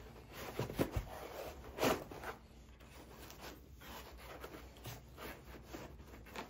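Hands shifting metal kit parts in a foam-lined cardboard box: rubbing and scraping against foam and cardboard, with a few knocks in the first two seconds.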